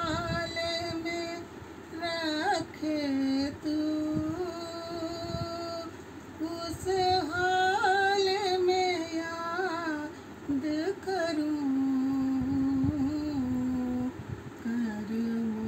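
A woman singing a Hindi bhajan solo, with no instruments: long held notes that waver and turn in melodic ornaments, broken by short pauses for breath.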